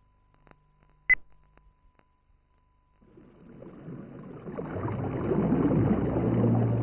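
A single short, sharp beep about a second in over a faint steady tone, like a film-leader sync beep. From about three seconds a rushing wash swells steadily louder as the opening ambient music fades in, with low held notes coming in near the end.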